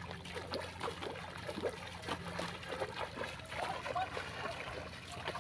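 Shallow muddy pond water being stirred by hand, with small splashes and trickling drips.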